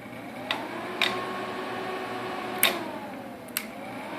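Sharp, irregular clicks ('pecking') from inside an HP 8566A spectrum analyzer, four of them, the third the loudest. The owner guesses a relay is clicking, and he takes it as a sign of the unit's fault. Behind the clicks a faint whine rises and then falls in pitch.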